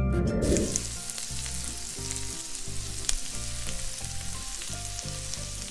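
Chopped onion sizzling in butter in a hot wok, stirred with a spatula that scrapes and taps the pan now and then. The sizzle sets in a moment after the start.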